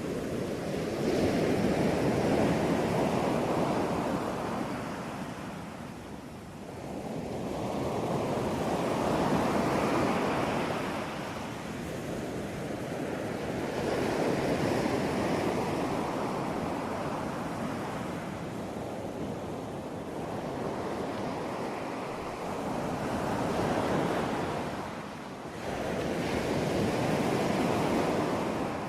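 Ocean surf: waves breaking and washing ashore in slow surges that swell and fade every several seconds, with a steady rush between them.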